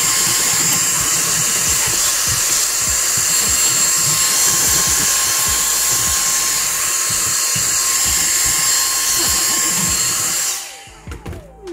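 Dyson cordless handheld vacuum running at a steady high whine with rushing air as its crevice nozzle sucks dust from the pleats of a reusable cotton panel air filter. It is switched off about ten and a half seconds in and winds down.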